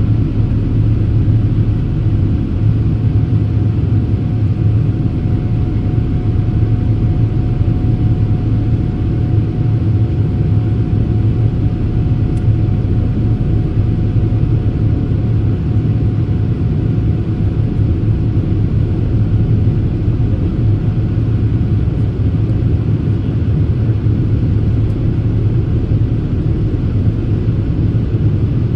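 Steady, loud cabin rumble inside a Boeing 787-8 in climb after takeoff: Rolls-Royce Trent 1000 engine noise and airflow over the fuselage, with a faint steady tone in the first half.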